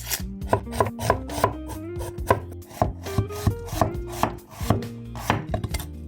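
Kitchen knife chopping onions on a cutting board: quick, uneven strikes, about four a second.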